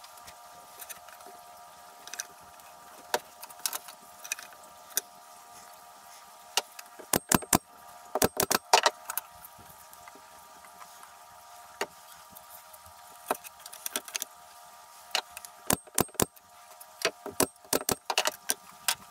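Pine slats and small wooden spacers being handled and laid onto a wooden crate: irregular light wood-on-wood knocks and clatters, some in quick clusters, over a steady hum.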